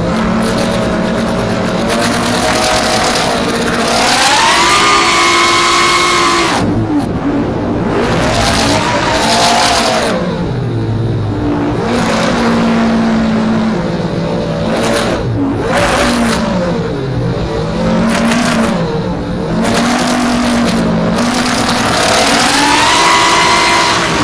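FPV racing quadcopter's motors and propellers whining, the pitch climbing and dropping again and again with the throttle. Stretches of rushing noise come and go.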